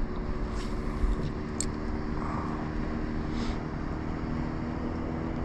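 A boat motor running with a steady hum over a low rumble, with a few faint clicks.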